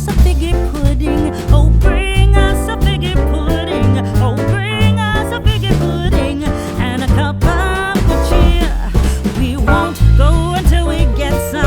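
Background music with a heavy bass line under a wavering lead melody.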